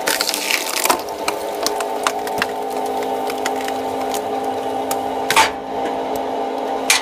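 Screw-cone log splitter humming steadily as its threaded cone spins, while logs pushed onto it creak and crack apart with sharp splitting snaps, loudest near the start, about five seconds in and just before the end.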